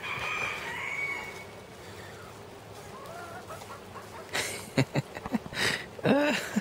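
Backyard chickens clucking, with a rooster crowing faintly in the first second; a run of short, louder clucks comes in the last two seconds.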